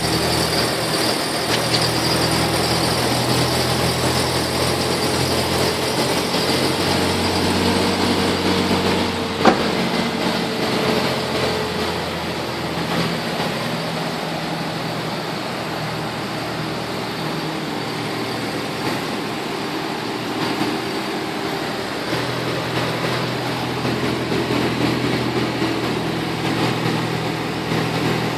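Toyota Innova engine running, with the droning, whistling noise from the underbody exhaust that the owner finds abnormal and the dealer's technician calls a normal tailpipe whistle. A faint higher tone rises and falls in the middle, and there is a sharp click about nine seconds in.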